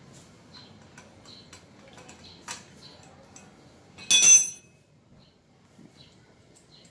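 Light clicks and ticks of hands handling wires and small parts, then about four seconds in one loud metallic clink that rings briefly, as of a metal hand tool knocking against metal.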